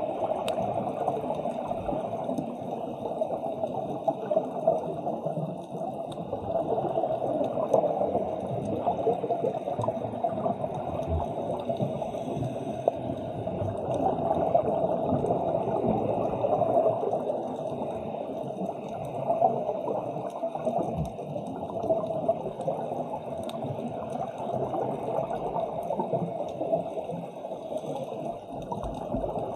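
Muffled, continuous underwater bubbling and water noise, as picked up by a camera underwater during a scuba dive.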